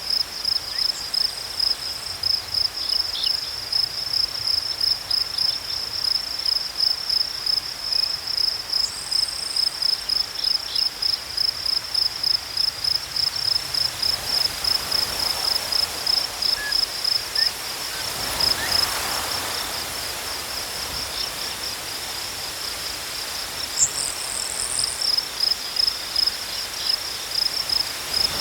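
Crickets chirping in a steady, rapid pulsing trill at one high pitch, with a few brief higher chirps over it. A soft rush of noise swells through the middle.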